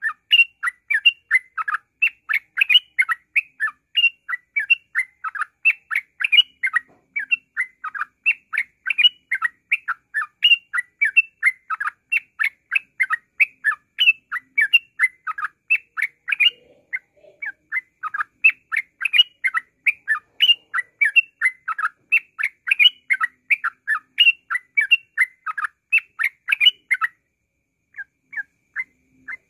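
Yellow-vented bulbul (trucukan) singing in the fast, unbroken 'ngropel' style: a rapid run of short chirping notes, several a second, that stops briefly near the end and then starts again.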